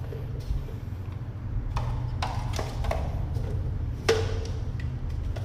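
A few sharp knocks and clicks of hard plastic camera accessories being handled and set down, the loudest just after four seconds in, over a steady low hum.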